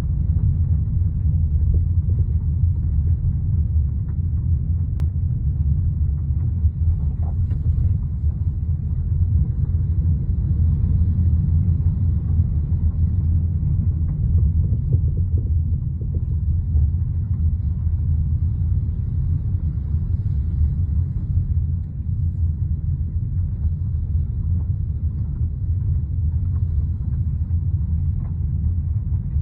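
Steady low road rumble from a moving Honda Civic sedan, with a few faint dull knocks from the suspension scattered through it. The knocks are of unknown origin: a service shop and a vibration test stand have not found the cause.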